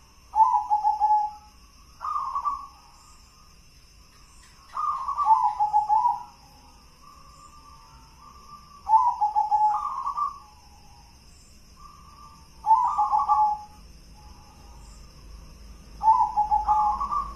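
Local Indonesian zebra dove (perkutut) cooing, repeating its rolling coo phrase six times, a few seconds apart, in the song style that keepers call 'gendolo sabdo'.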